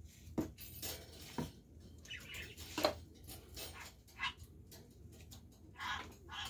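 A metal spoon scraping and knocking inside a tin can as thick condensed soup is emptied out, with a few short sharp clicks among the scrapes.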